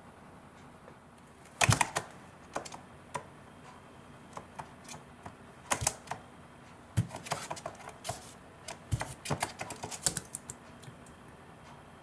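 A cockatiel pecking and chewing at cardboard: irregular sharp beak taps and clicks in quick clusters, starting about one and a half seconds in, the loudest taps at the start.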